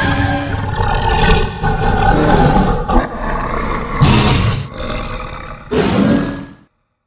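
Kaiju monster roar sound effect for Baragon, layered from animal recordings: one long, rough roar that surges several times before breaking off about six and a half seconds in.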